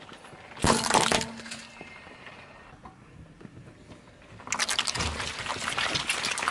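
A car tyre crushing a jointed plastic toy, a short burst of cracking and crunching a little over half a second in. After a quieter stretch, about two seconds of dense squishing and crackling as the tyre rolls over and breaks up a block of red jelly.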